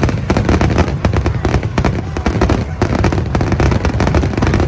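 Aerial fireworks going off in quick succession, many sharp bangs and crackles overlapping over a continuous low rumble.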